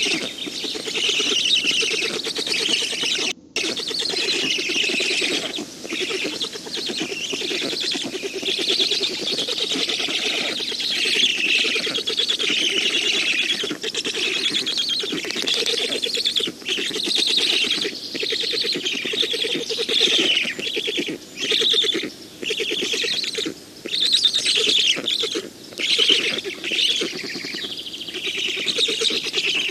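Black stork nestlings calling almost without pause: a fast, pulsing, high chatter, broken by short pauses, one about three and a half seconds in and several more in the second half.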